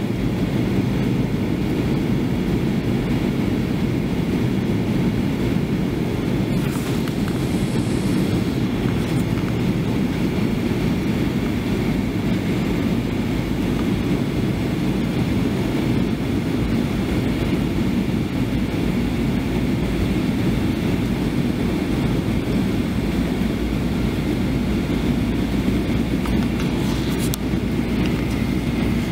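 Steady low roar inside the cabin of a Boeing 737-800 on approach: engine and airflow noise heard from a window seat, with a faint high hiss above it.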